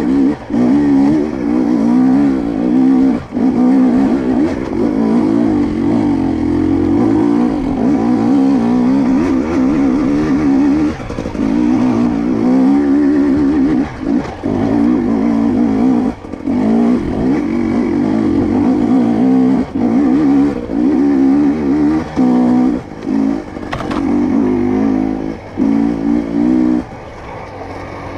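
A 2022 GasGas EC250 two-stroke dirt bike engine is revving up and down constantly as the bike is ridden, with short drops several times where the throttle is rolled off and a quieter stretch near the end.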